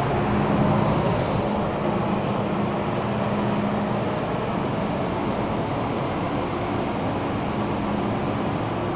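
MTR M-Train electric multiple unit standing at a station platform with its doors open: a steady hum and rumble from the train and station.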